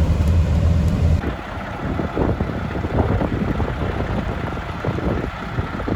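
Snow-plow truck's engine droning steadily. About a second in the sound changes abruptly to an uneven rumble with wind noise and crackle on the microphone.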